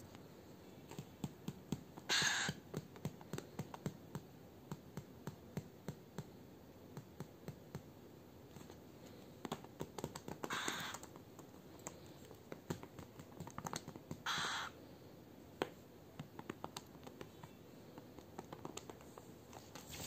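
Cockatiel's claws clicking and tapping as it steps about on a plastic sofa cover, with three short hissing bursts about two, eleven and fourteen seconds in.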